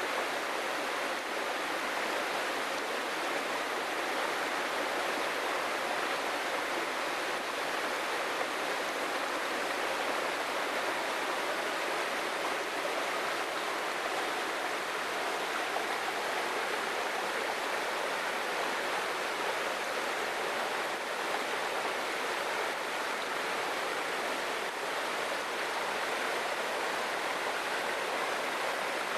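Waterfall in a forest, water rushing and splashing in a steady, even wash without breaks.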